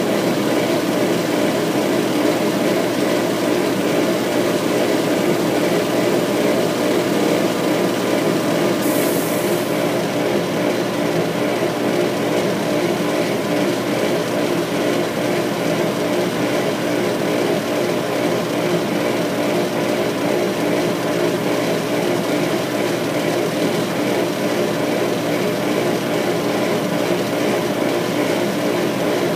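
Laser engraver running during an etching job: a steady mechanical whir with a hum of several steady tones.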